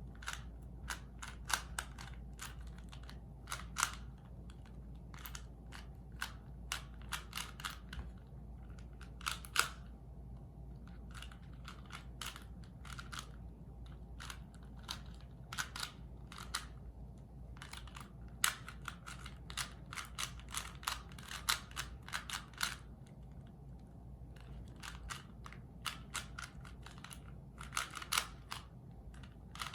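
Rubik's cube being turned by hand: irregular clicks of its layers snapping round, often in quick runs of several turns, with short pauses between.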